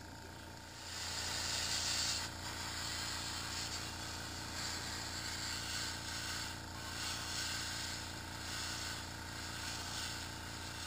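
Gravity-feed airbrush hissing as it sprays thinned paint. The hiss starts about a second in and carries on with a few brief dips, over a steady motor hum.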